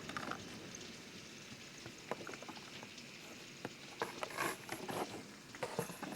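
Steady hiss of heavy rain and floodwater, with scattered knocks and splashes, several of them close together about four seconds in.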